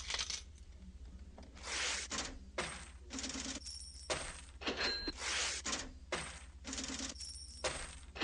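Coins jingling and clinking in a run of short bursts, some with a brief metallic ring, over a steady low hum.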